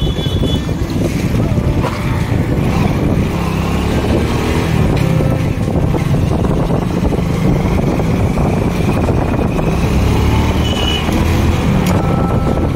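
Motor vehicle engine and road noise while riding, with wind buffeting the microphone; the engine pitch shifts up and down with speed.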